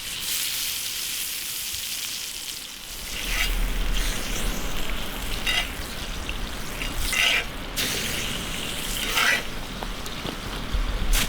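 Food sizzling as it fries in hot fat, a steady crackling hiss, with a few short sharp clicks or scrapes through it. A low rumble joins about three seconds in.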